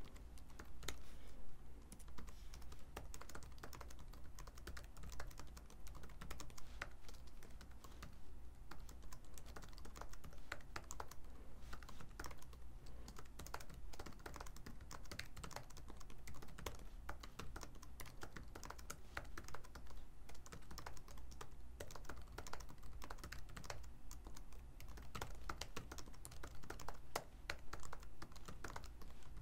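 Typing on a computer keyboard: a steady run of quick key clicks, over a faint low hum.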